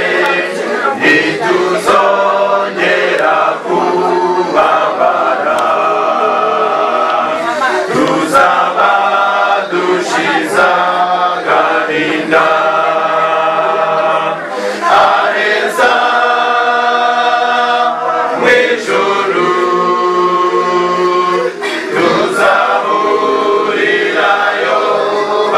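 Choir singing a cappella in parts, with long held notes and no instruments.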